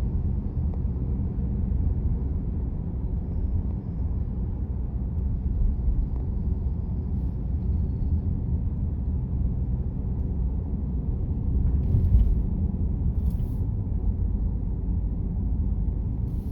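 Steady low road rumble of a moving car, heard from inside the cabin, with two brief high hisses near the end.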